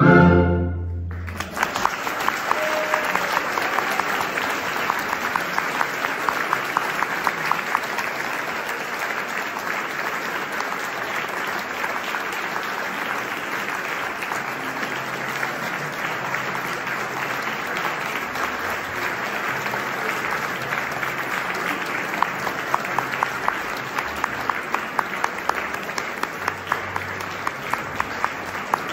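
A chamber orchestra's final chord with the soprano cuts off about a second in, then the audience applauds steadily, with sharper single claps standing out near the end.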